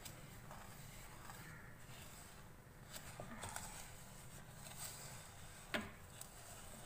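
Wire whisk stirring crumbly biscuit-powder mixture in a ceramic bowl: faint, irregular scraping and rustling, with one small knock a little before the end.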